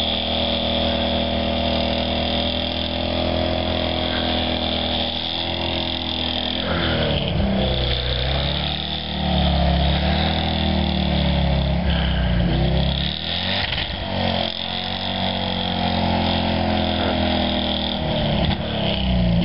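Willys pickup truck's engine, running steadily at first, then revved up and down several times from about six seconds in as its wheels spin in deep snow.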